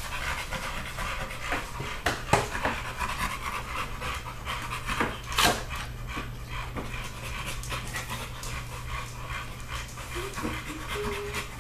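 American Bully dog panting steadily, with a few sharp knocks, the loudest about five and a half seconds in.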